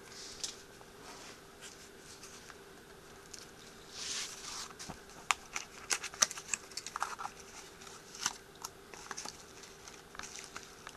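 Small cardboard box being handled and pried at, its flaps and folds scraping and rustling with scattered sharp clicks and snaps, loudest a little past the middle.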